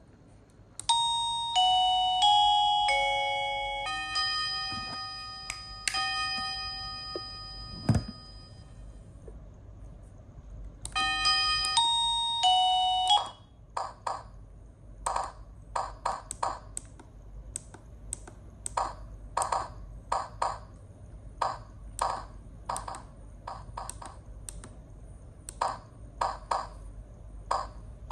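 Wireless doorbell chime receiver playing electronic chime tunes. A quick four-note falling ding-dong melody rings out, then a longer sustained chime that fades, with a single knock at its end. The melody comes again and cuts off suddenly, followed by a long run of short, irregular pings, about one or two a second.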